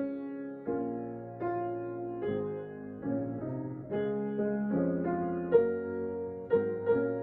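Slow solo piano music: chords struck about once every second and left to fade between strikes.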